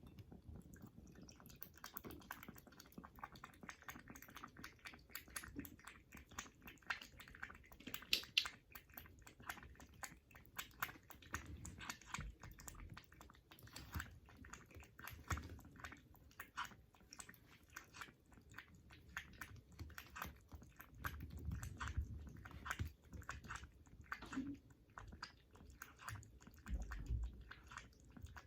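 Kitten drinking milk: a long run of faint, quick clicks and smacks, several a second, with a few soft low thumps.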